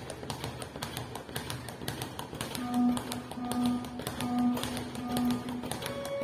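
Leather speed bag being punched against its rebound platform: a rapid, even rattle of knocks. Four held low musical notes sound in the middle, over the knocking.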